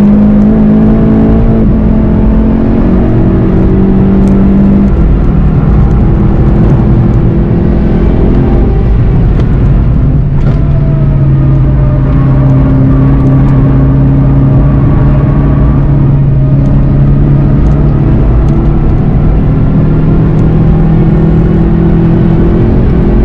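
Turbocharged four-cylinder engine of a VW Golf GTI TCR pulling hard under acceleration, heard from inside the car with road and wind noise, dropping in pitch about nine seconds in at an upshift and then climbing again.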